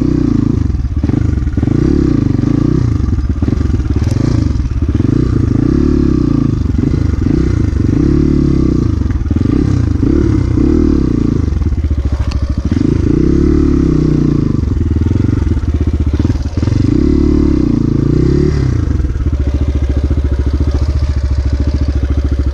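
Off-road motorcycle engine revved again and again in short rising-and-falling bursts, then settling to a steady idle near the end.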